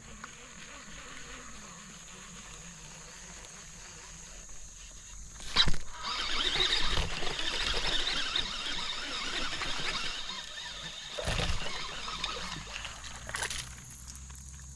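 Water splashing and sloshing for about five seconds, starting with a sharp click about six seconds in: a small spotted bass being fought and splashing at the surface. A steady high chirring of crickets runs underneath.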